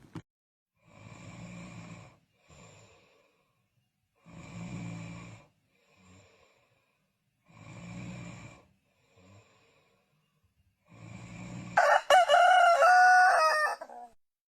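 Slow, rhythmic snoring, four long breaths about three seconds apart, each with a short weaker breath after it. About twelve seconds in, a loud rooster crow of about two seconds breaks in.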